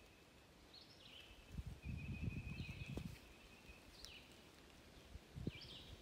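Quiet woodland ambience: a faint, steady high-pitched tone with a short chirp every second or so, and soft low rustling thuds about a second and a half in and again near the end.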